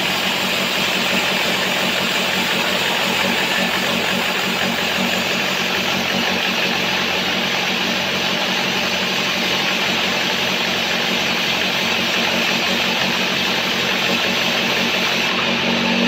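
Band sawmill running steadily, its blade cutting lengthwise through a sengon (albasia) log: an even mechanical drone over a low hum.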